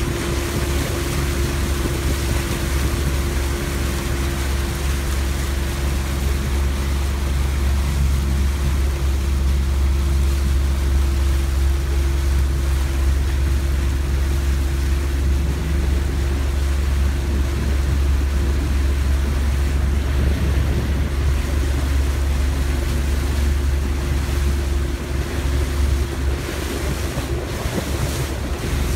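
Steady drone of a small motorboat's engine running underway, with water rushing past the hull and wind on the microphone.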